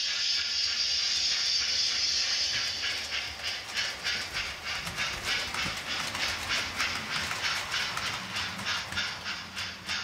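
Model railway passenger train passing, its wheels clicking over the rail joints in an even clickety-clack of about three clicks a second. A steady hiss fills the first few seconds.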